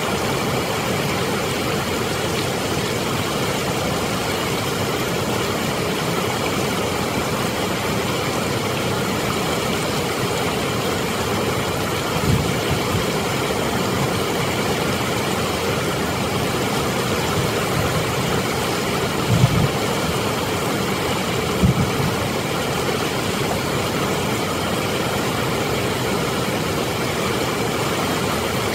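Steady roar of water pouring over a dam spillway and rushing through rocky rapids. A few short low thumps break through, about halfway in and twice more later.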